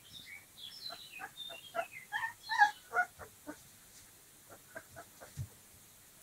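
Very young Dogo Argentino puppies, about 25 days old, squeaking and whining as they play-fight: a quick run of short high squeals that fall in pitch during the first three seconds or so, then a few softer squeaks.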